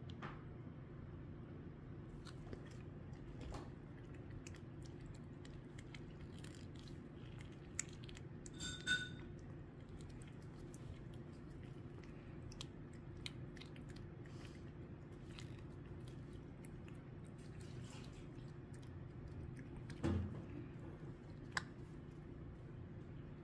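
Tabby cat licking a creamy squeeze-up treat from its tube: faint, small wet licking clicks over a steady low hum. A brief high tone sounds about nine seconds in, and a dull thump about twenty seconds in.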